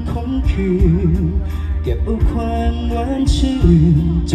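A man singing a Thai song into a handheld microphone over musical accompaniment, amplified through the stage sound system during a sound check, with held notes that waver in vibrato.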